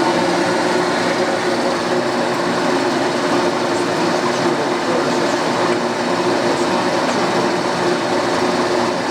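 Standard Modern Series 3000 metal lathe running under power with its geared headstock driving the spindle: a steady mechanical whir of gears with a few constant tones.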